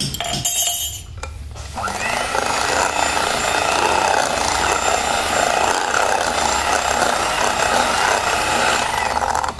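Electric hand mixer with twin wire beaters starting up about two seconds in and running steadily as it beats cake batter in a bowl, then switched off near the end.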